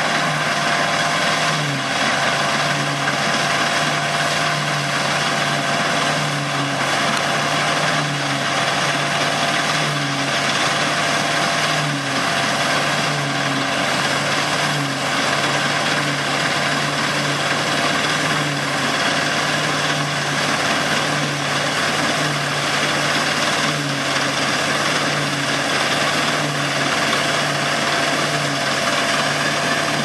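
Dronningborg Dania D950 combine harvester running steadily while cutting and threshing barley. It has a low hum that wavers up and down in a regular cycle about once a second, under a steady higher whine.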